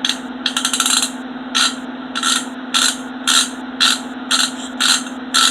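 Freshly greased Craftsman 3/4-inch drive hand ratchet being swung back and forth, its pawl clicking over the gear teeth: a quick run of rapid clicks near the start, then short bursts of clicks about twice a second. The clicking is coarse and fairly loud because the gear has not many teeth.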